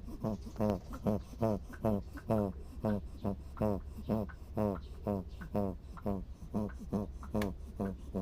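A puppy snoring in quick, regular breaths, a little over two snores a second, each a short pitched snort.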